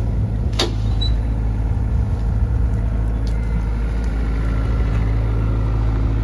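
A vehicle engine running steadily at idle with a constant low drone, and a sharp click shortly after the start.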